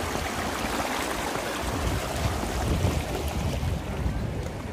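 Shallow river water rushing around stepping stones, a steady wash of running water, with wind buffeting the microphone.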